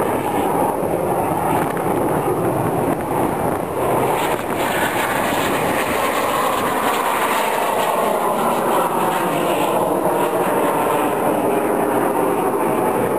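Snowbirds CT-114 Tutor jet flying overhead: steady jet noise with a whine that slowly falls in pitch from about four seconds in as it passes.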